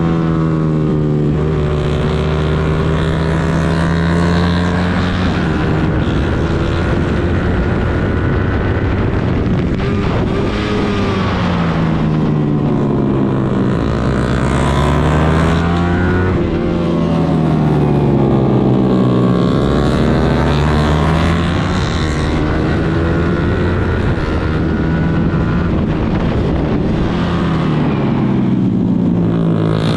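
Suzuki GSX-R150's single-cylinder engine working hard on track, its pitch rising and falling again and again as the bike accelerates and slows, with wind noise on the microphone.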